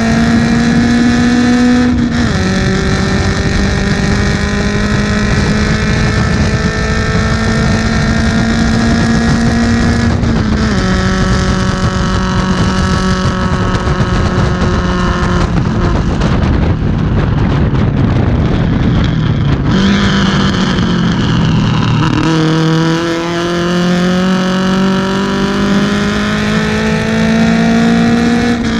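BMW 2002 race car's four-cylinder engine under hard acceleration, heard from inside the car, its pitch climbing slowly in long pulls. The pitch drops sharply at upshifts about two and ten seconds in. From about fifteen to twenty seconds in the note breaks up into rough noise, then climbs again.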